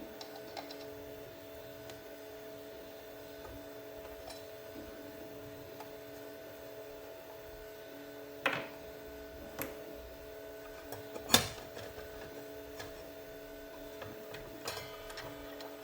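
A few sharp clicks and knocks of hand work on a miter saw as its blade and arbor bolt are taken off, the loudest about eleven seconds in, over a faint steady hum.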